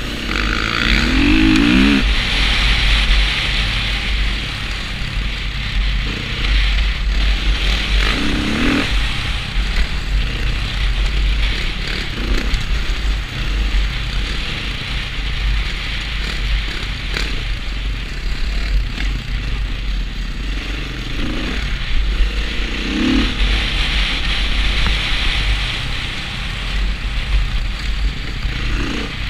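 Dirt bike engine running under way on a dirt trail, heard from the rider's helmet camera, with a heavy rumble of wind on the microphone. The revs rise briefly a few times as the throttle is opened.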